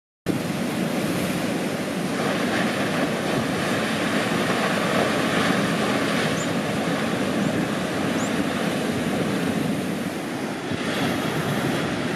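Atlantic surf breaking and washing in: a steady rush of broken water that swells slightly about two seconds in and again near the end.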